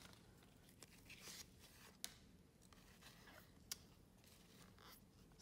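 Near silence, broken by faint slides and soft clicks of a stack of trading cards being flipped through by hand, with two sharper clicks about two seconds in and near four seconds.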